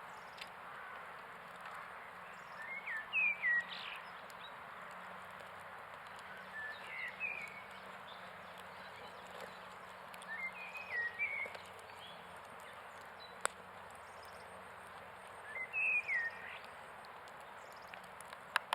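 A bird singing a short chirped phrase about every four seconds, four times, over a steady background hiss, with one sharp click partway through.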